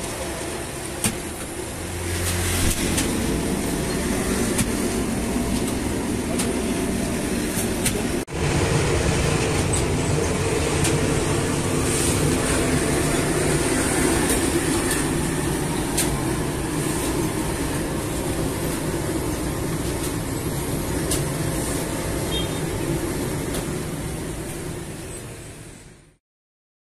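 Steady mechanical running noise of a semi-automatic flatbread line, its dough-rolling machine and oven, with a few sharp clicks. It fades out near the end.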